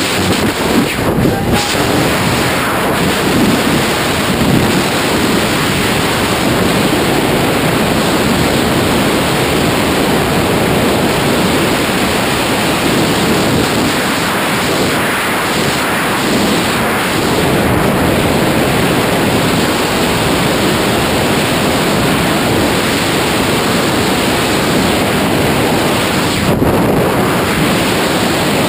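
Freefall airflow rushing over the camera's microphone during a tandem skydive: loud, steady wind noise with no letup.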